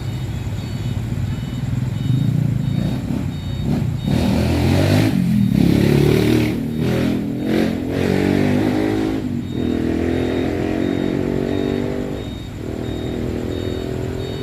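Slow, jammed road traffic: a heavy vehicle's engine pulls away and passes close, loudest between about four and nine seconds, over the steady running of other engines. A faint high beep repeats evenly in the background.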